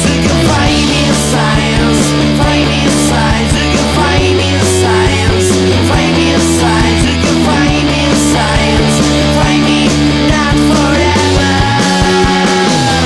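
Instrumental break of a rock song played by a full band: sustained guitar and keyboard chords over bass, with drums keeping an even beat of cymbal hits. There is no singing.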